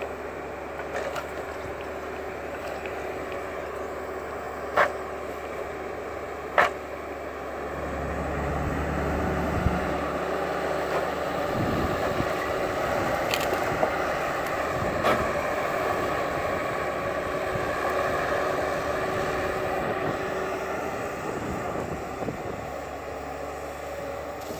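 Timberpro 840B forwarder's diesel engine running steadily, growing louder about eight seconds in as it works harder. A few sharp knocks in the first seven seconds.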